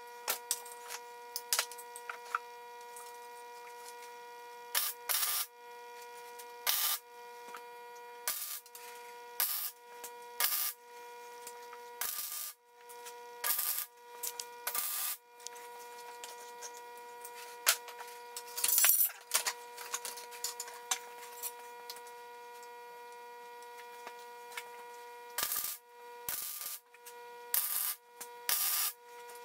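MIG welder laying short tack welds on steel: a string of brief crackling bursts, each well under a second and spaced irregularly, over a steady hum.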